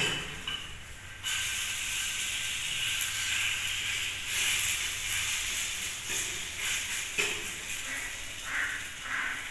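Pancake sizzling in a small nonstick frying pan over a gas flame. The sizzle jumps up suddenly about a second in, as the pancake is turned onto its uncooked side, then hisses on steadily.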